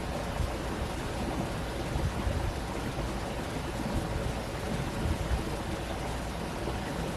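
Stream water rushing in a steady hiss, over a fluctuating low rumble.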